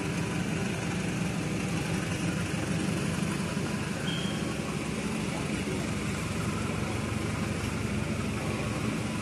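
A diesel-electric locomotive's engine runs with a steady low drone as it slowly hauls a passenger train through the station.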